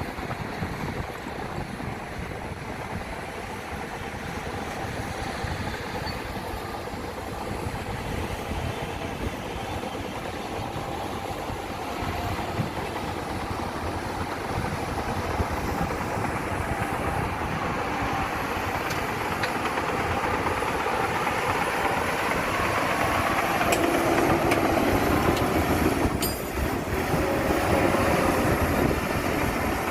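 Heavy diesel engine of earthmoving machinery running, growing steadily louder, with a short drop in level near the end.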